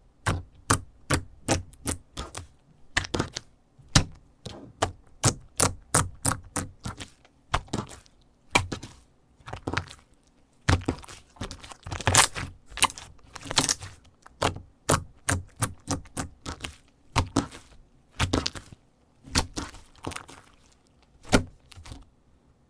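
Jiggly slime being squeezed and poked by hand, giving a long run of sharp clicking pops at about two a second, unevenly spaced.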